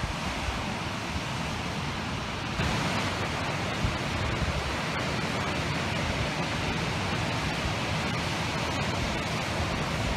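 Steady rush of surf breaking on a beach, with wind rumbling on the microphone. The rush gets brighter about two and a half seconds in.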